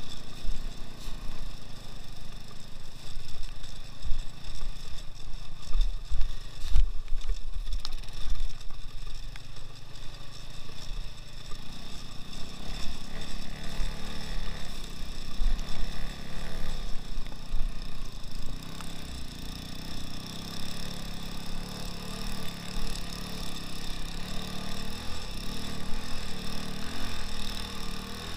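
Engine of a two-wheel-drive off-road motorcycle running under way over rough snowy ground, with a constant low rumble from the ride. There is one sharp knock about seven seconds in, and the engine note gets fuller from about twelve seconds in.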